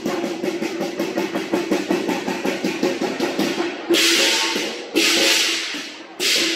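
Lion dance percussion: rapid drumming on the lion dance drum, joined from about four seconds in by three loud cymbal crashes, each ringing for about a second.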